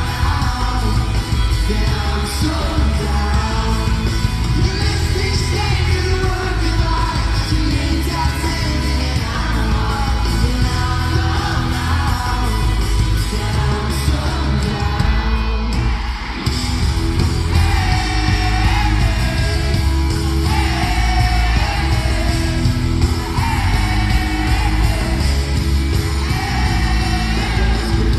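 Live pop-punk band heard from the stands of an arena: electric guitars, bass and drums under a sung lead vocal, with the crowd yelling along. The sound is loud and heavy in the bass.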